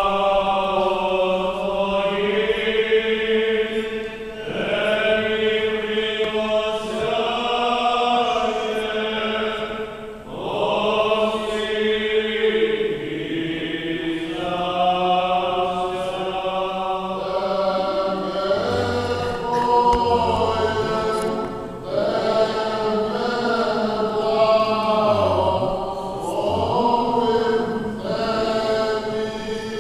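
Eastern-rite liturgical chant: voices singing long, held phrases one after another without a break.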